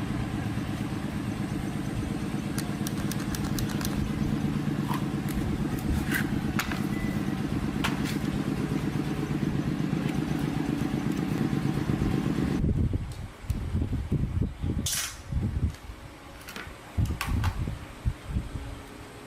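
A small engine running steadily, cutting off abruptly about two-thirds of the way through, followed by scattered clunks and knocks.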